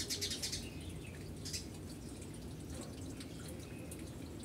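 Small chocolate chips pattering onto a sheet of pastry dough as they are scattered by hand: a quick run of light ticks at the start and another brief one about one and a half seconds in, over a low steady hum.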